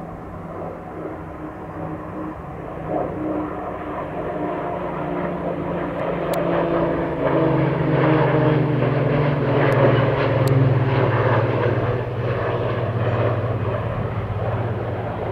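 Two single-engine Pilatus turboprop aircraft, a PC-12 among them, flying past together: a propeller drone that grows louder toward the middle and then eases off, its pitch sliding steadily down as they go by.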